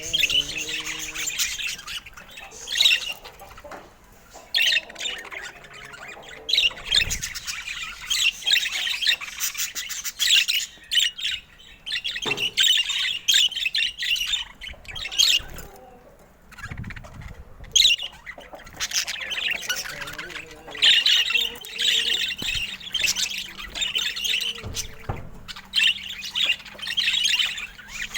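Budgerigars chattering and chirping in bouts of a few seconds, separated by short lulls.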